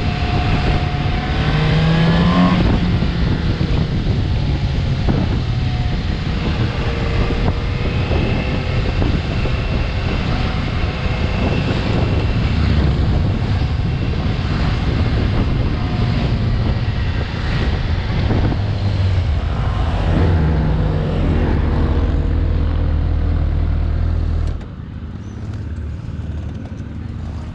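Suzuki GSX-S750's four-cylinder engine running under way, its revs rising and falling repeatedly through the bends, over wind and road noise. The sound drops abruptly to a much lower level near the end as the bike comes to a stop.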